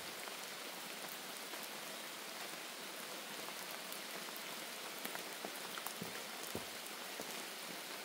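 Rain shower falling steadily as an even hiss, with a few sharper drop ticks from about five seconds in.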